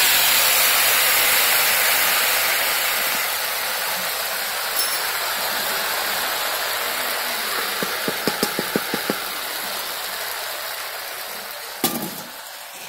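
Hot liquid poured into a pot, hissing and fizzing as the contents bubble and throw off steam; the hiss slowly fades. A quick run of light clicks comes about eight seconds in, and a single knock near the end.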